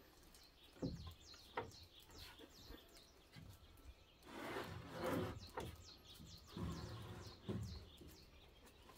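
Rough-sawn wooden planks being handled on a stack: two sharp wooden knocks about a second in, then boards slid and scraped across each other twice in the second half. Birds chirp throughout.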